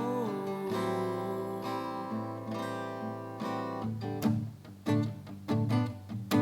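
Acoustic guitar: a chord left ringing, then steady rhythmic strumming picks up about four seconds in.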